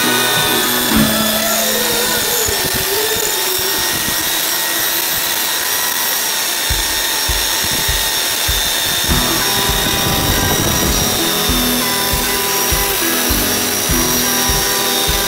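Makita belt sander running with a steady whine while a wooden knife handle is pressed against the belt and sanded. Background music plays along with it, with a steady low beat coming in about halfway through.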